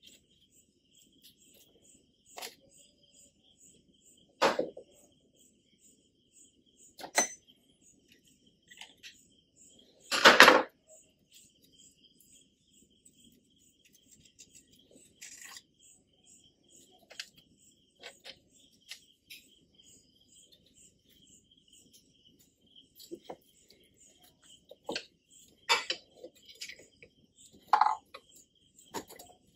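Scattered metallic clinks and knocks of engine parts and hand tools being handled while a Yamaha RX100 engine is taken apart, with one louder clank about ten seconds in.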